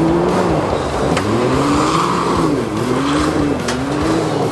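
Can-Am Maverick X3 Turbo RR's turbocharged three-cylinder engine revving up and down again and again as the side-by-side spins donuts on dirt, the spinning tyres spraying gravel and dust.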